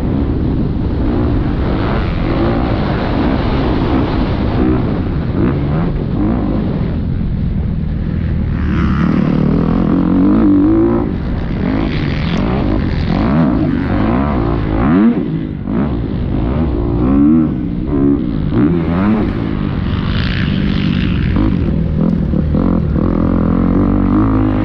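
Motocross bike engine heard from an onboard camera while riding a dirt track, revving up and dropping back again and again as the rider accelerates, shifts and slows for turns.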